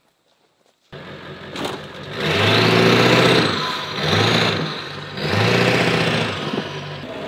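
An engine running, starting abruptly about a second in and swelling louder three times at a steady pitch.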